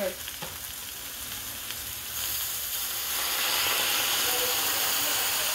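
Sweet potato leaves sizzling in a hot stainless skillet. The sizzle grows louder about two to three seconds in as soy sauce is poured over them and hits the hot pan.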